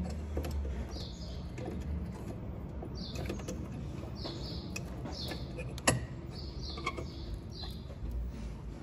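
Small plastic clicks and knocks as hands work at a car's headlight housing and its wiring connector, the sharpest about six seconds in. Birds chirp repeatedly in the background.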